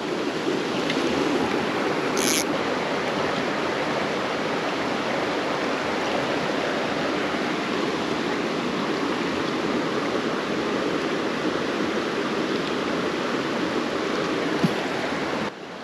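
Creek water running steadily over rocks. A brief high-pitched sound comes about two seconds in, and the water sound drops away suddenly near the end.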